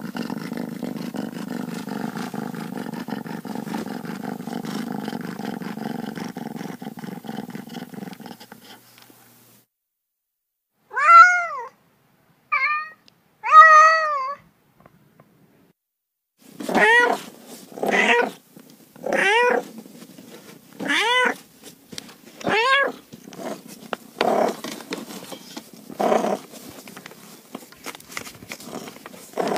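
Domestic cats meowing. A steady low rumble fills the first eight seconds or so. About halfway through come three loud meows, then a run of about nine repeated meows, roughly one every second and a half.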